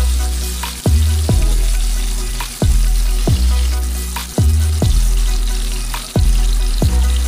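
Oil sizzling steadily around a golden threadfin bream pan-frying in a pan. Background music runs over it, its loudest part a deep bass note struck about once a second.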